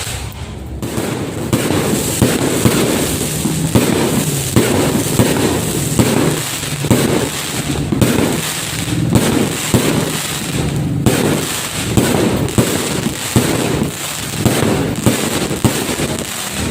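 Fireworks going off continuously, a dense stream of overlapping bangs and crackles with no let-up.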